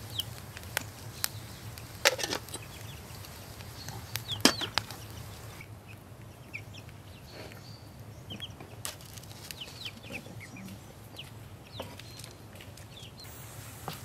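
Domestic chickens clucking with short, brief calls. In the first few seconds a wood fire crackles, with a couple of louder sharp pops.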